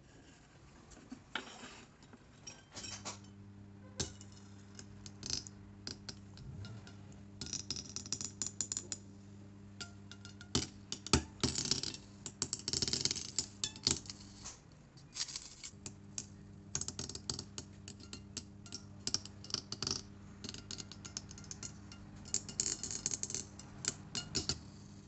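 A hot-wire foam cutter hums steadily, switching in about three seconds in and pausing briefly about midway. Over the hum come frequent small clicks, taps and scraping as the MDF template and foam block are pushed and turned against the cutter's metal table.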